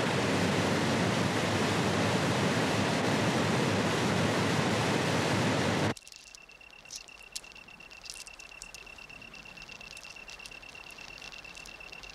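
Loud, steady rushing of river water that cuts off abruptly about six seconds in. After it comes a quiet background with a steady high-pitched tone and a few faint clicks.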